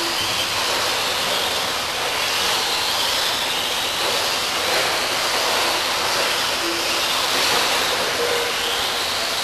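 Electric 1/10-scale stadium trucks racing on an indoor dirt track: a steady hiss of motors and tyres, with the motors' whine rising and falling as the drivers work the throttle. A couple of short low beeps sound partway through.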